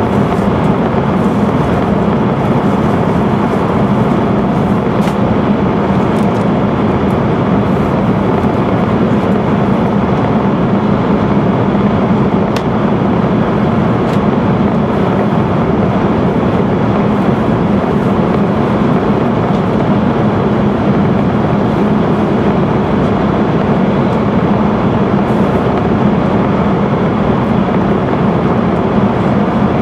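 E5-series Shinkansen running at speed through a tunnel, heard from inside the passenger cabin: a loud, steady rush of wheels and air with a low hum.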